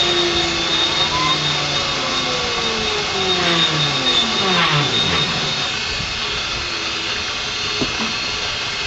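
CNC-converted Grizzly G0619 mill dry-cutting 6061 aluminum with a 6-flute carbide end mill at 1800 rpm: steady spindle and cutting noise with a high whine. Over this run motor tones glide up and then fall in pitch as the machine moves around the circular pocket; the high whine fades about five seconds in.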